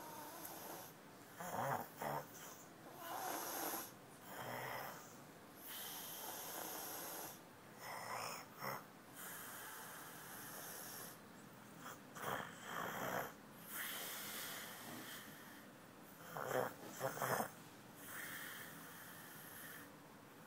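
A sleeper snoring, a rasping noisy breath every one to two seconds in an uneven rhythm, with three quick sharp breaths close together about 17 seconds in.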